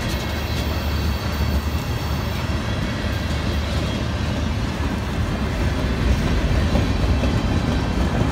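Freight train cars rolling slowly past on wet rails, a steady low rumble of steel wheels on the track, with the train riding its brakes.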